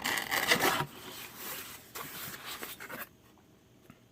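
Rustling and rubbing of packaging being handled while unboxing a camcorder, loudest in the first second, then lighter scrapes that die away about three seconds in.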